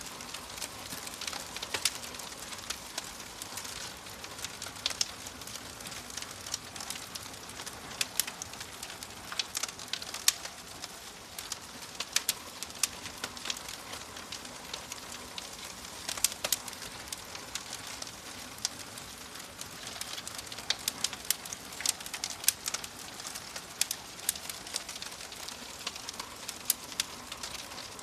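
Wood fire in a fireplace crackling: a steady hiss with frequent, irregular sharp pops and snaps, some louder than others.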